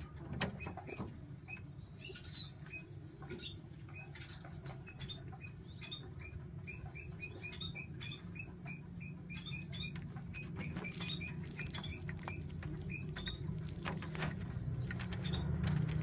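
Four-day-old dove squabs cheeping in a quick series of short, high peeps, a few a second, while the parent bends over them in the nest, as squabs do when begging to be fed; light clicks and rustles from the nest and a steady low hum sit underneath. The peeping stops about three-quarters of the way through.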